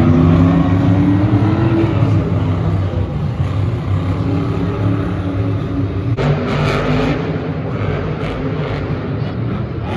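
Monster truck engine revving, its pitch climbing over the first two seconds, then running on as a loud steady drone. There is an abrupt change in the sound about six seconds in.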